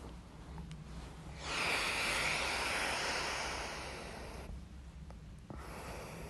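A person breathing out long and hard for about three seconds, a loud airy rush. About five and a half seconds in there is a brief click, followed by a softer breath.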